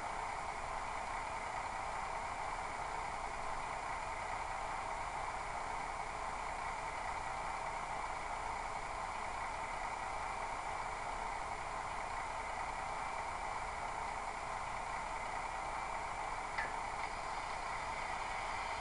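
Model train sound decoder (LokSound 3.5 with a Howes Class 153 sound project) playing a steady diesel idle through the model's small speaker, thin and mid-pitched with little bass. Two faint clicks near the end.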